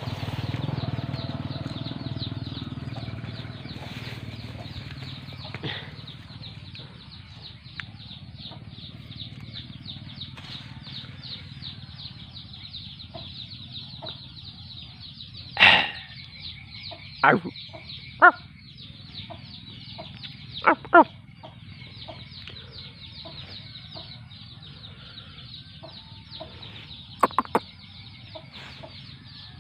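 Outdoor animal ambience: a steady chorus of rapid high chirps, with about half a dozen short, loud animal calls in the second half, some in quick pairs.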